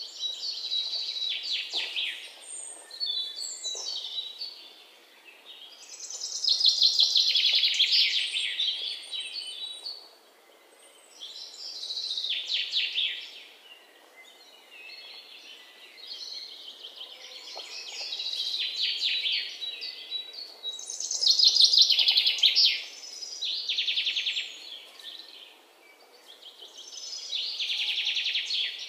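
Small birds singing in repeated bouts of rapid, high chirping and trilling, each bout lasting a couple of seconds with short lulls between, over faint outdoor background noise.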